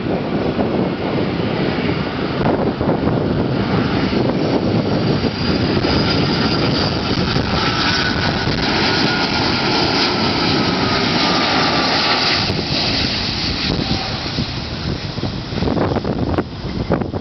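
Airbus A330-200F freighter's twin jet engines passing on landing approach: a loud, steady rush of engine noise with a faint whine that falls slightly in pitch midway.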